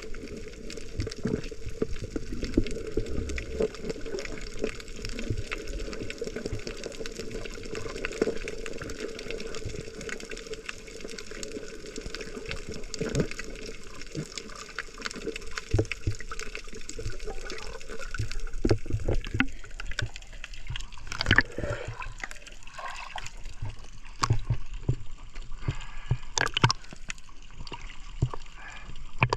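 Water sloshing and gurgling around a GoPro camera on a snorkeler, with scattered clicks and splashes. The clicks and splashes grow more frequent in the last ten seconds.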